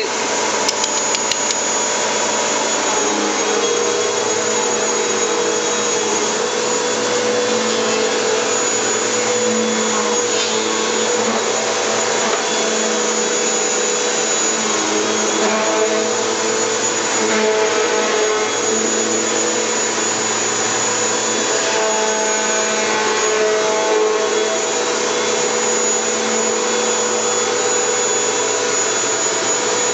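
Vacuum cleaner running continuously, a loud steady motor roar with a whine whose pitch wavers a little now and then.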